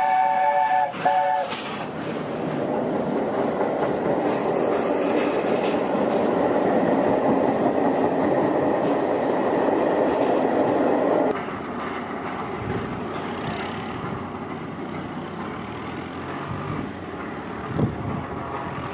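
LNER A4 steam locomotive Union of South Africa sounding its chime whistle in two short blasts at the start. The train then passes close by with a steady loud rumble of coaches and wheels, which drops abruptly to a quieter, more distant train sound about eleven seconds in, with a single thump near the end.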